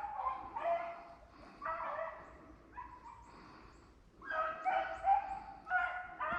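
Hunting hounds baying, several drawn-out pitched bawls in a row, typical of a pack giving mouth as it trails a rabbit. The calls fade briefly past the middle and come back louder in the second half.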